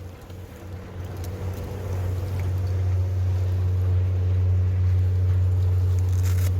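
Engine running with a steady low hum that grows louder over the first two seconds, then holds even.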